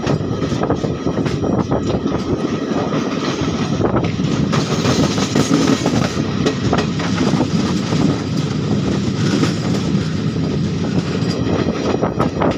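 Passenger express train running, heard from aboard a coach: a steady rumble with the wheels clattering over the rails in many quick, irregular clicks.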